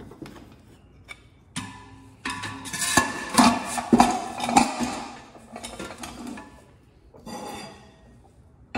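The iron dasher of a White Mountain hand-cranked ice cream freezer being fitted into its metal cream can and the lid set on: an irregular run of metal clanks and scrapes, loudest between about two and five seconds in, with a few lighter knocks near the end.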